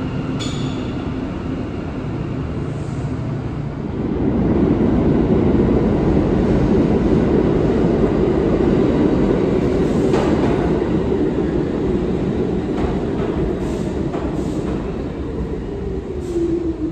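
New York City subway train running in on the far track. Its steady rumble grows louder about four seconds in and stays loud, with a few sharp clacks of wheels over rail joints later on and a short whine near the end.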